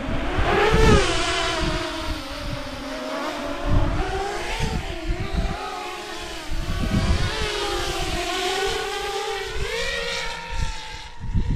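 A 10-inch FPV quadcopter with 900KV brushless motors is taking off, its propellers whining. The pitch rises steeply in the first second as it throttles up, then wavers up and down with the throttle. The whine dies away just before the end.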